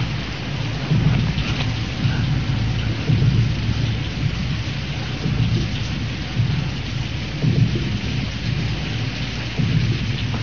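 Heavy rain falling steadily, with low rumbles of thunder swelling and fading every second or two.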